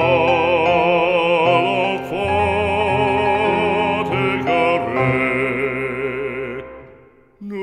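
Background music: slow French hymn singing with a wide vibrato over a steady low accompaniment. The phrase dies away near the end.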